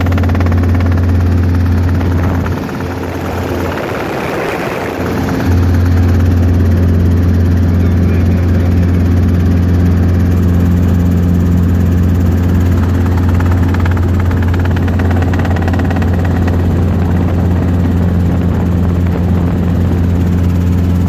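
Helicopter in flight heard from inside the cabin: a loud, steady low drone of rotor and engine. About three seconds in, the low hum dips briefly under a short rush of noise, then returns.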